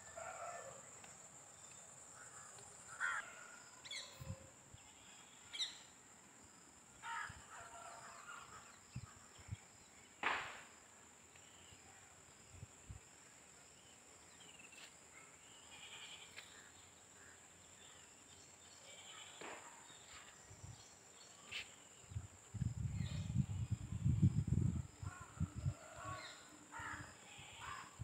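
Scattered bird calls in open countryside, short calls coming every few seconds, over a steady thin high-pitched tone. A few seconds of low rumbling on the microphone near the end are the loudest sound.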